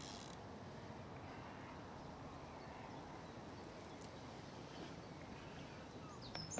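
Faint steady outdoor background noise, with a small bird starting to sing a quick, high, repeated trill near the end.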